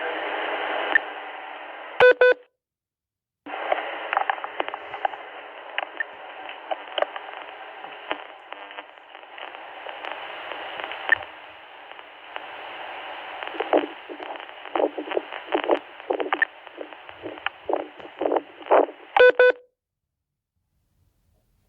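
Radio static: a band-limited hiss with crackles and pops that grow thicker and louder in the second half. A short beep sounds at about two seconds and again near the end, each time followed by the signal cutting out to silence.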